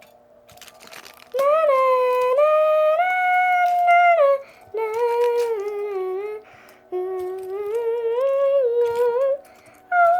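A high voice humming a wordless tune in long held notes that step up and down, in three phrases with short breaths between.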